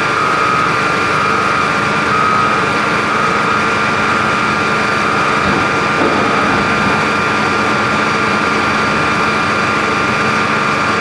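Large diesel engines of a Volvo EC950 excavator and a haul truck running steadily as the excavator loads the truck, a constant high whine over a low engine drone.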